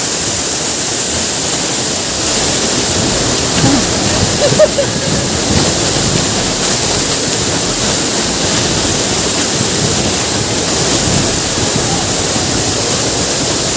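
Waterfall: a loud, steady rush of falling water, without a break.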